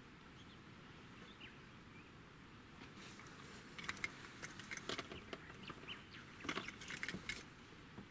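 Faint bird chirps over quiet outdoor ambience, then from about three seconds in a run of irregular small clicks and rattles.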